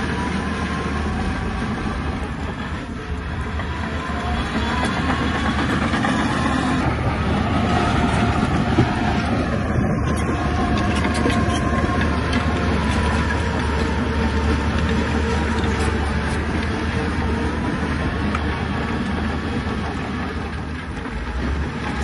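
Shantui crawler bulldozer's diesel engine running steadily under work, its pitch rising and falling a little, with the clatter of steel tracks.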